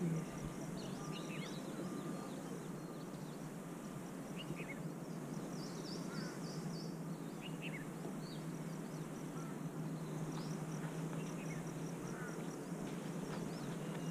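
Outdoor ambience of scattered short bird chirps and calls, with a fast high insect trill through the first half, over a low steady hum.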